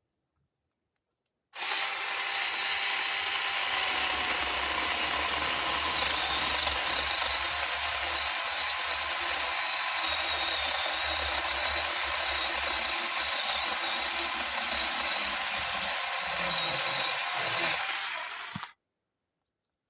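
A power cutting tool starts about a second and a half in and runs steadily under load for about seventeen seconds as it cuts through wood, then stops abruptly.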